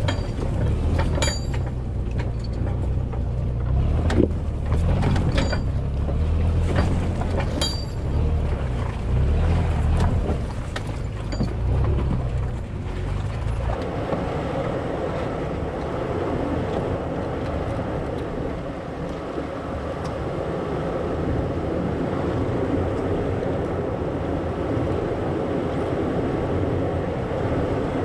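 Toyota 4Runner's engine labouring at crawling speed over a rocky trail, with sharp knocks and clunks as the tyres and suspension go over rocks. About halfway through, the low engine rumble drops away abruptly and a steady rushing noise takes over.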